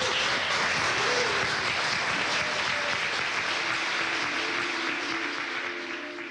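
A crowd applauding with dense, steady clapping that slowly fades near the end.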